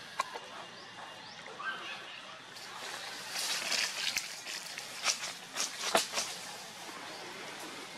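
Dry leaf litter crackling and crunching in a cluster of short, irregular rustles through the middle, over a steady outdoor hiss.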